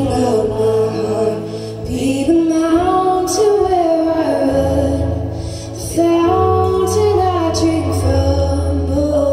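A woman singing a slow worship song into a handheld microphone, amplified, over an instrumental accompaniment with steady held low notes. Her melody rises and falls in long phrases, with a short breath before a new line begins about six seconds in.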